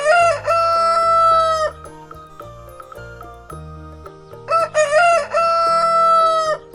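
Rooster crowing twice, each crow about two seconds long: a broken start, then a long held note that drops off at the end.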